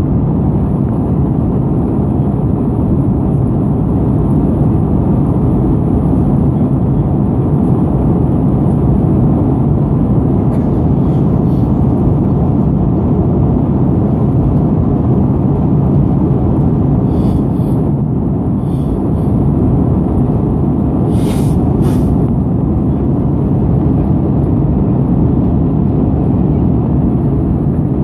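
Steady cabin roar of an Airbus A319-112 in flight on approach, the rush of airflow over the fuselage mixed with its CFM56 engines, heard from a window seat. A few faint brief clicks come in the second half.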